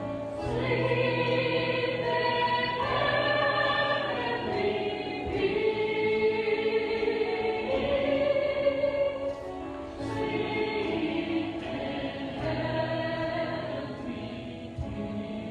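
Church music: a group of voices singing long held notes in phrases over a steady low accompaniment, with short breaks between phrases.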